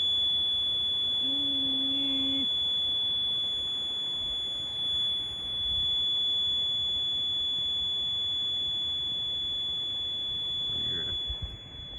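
A steady, high-pitched electronic tone that does not waver, over a constant hiss, with a brief low hum about a second in.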